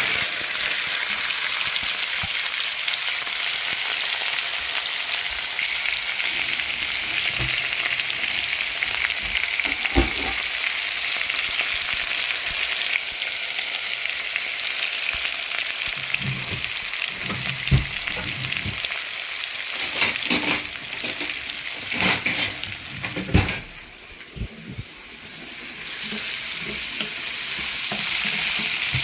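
Chopped onions and green chillies sizzling in hot oil in a pan, stirred with a spoon that knocks against the pan several times. The sizzle drops back a little about three-quarters of the way through, then builds again.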